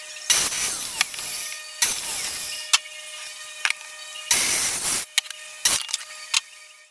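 Sliding mitre saw cutting through a wooden board in three loud bursts of about a second each, then a shorter fourth one near the end, with clicks and knocks from the saw and wood in between.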